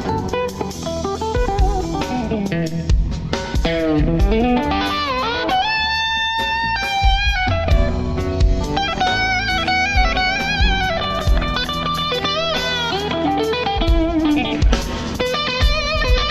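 Instrumental rock band playing live: a lead electric guitar, a Fender Stratocaster, carries the melody with bends, wide pitch swoops and dips, and one long held note about six seconds in, over bass and drums.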